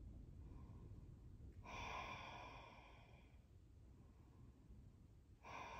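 Two faint, slow breaths, probably sighing exhales. One starts about a second and a half in and lasts more than a second; another starts near the end.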